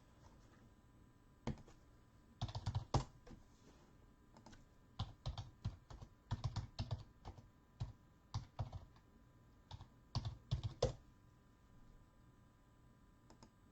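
Typing on a computer keyboard: short, irregular bursts of keystrokes, mostly in the middle of the stretch.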